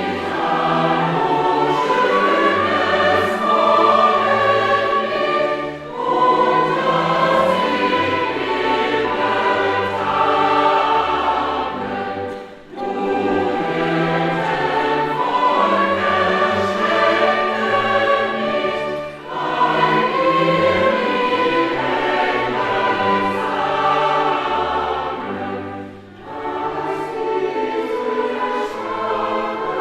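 A choir singing in long phrases of six or seven seconds, with a brief breath between each.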